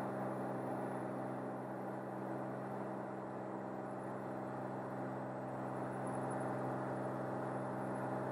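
Cirrus SR22's piston engine and propeller droning steadily, heard from inside the cockpit.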